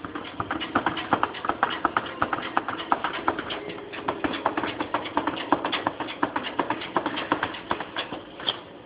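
A small dog's claws scratching and tapping rapidly against a glass door as it paws at it to be let in, about five or six scrapes a second, easing off near the end.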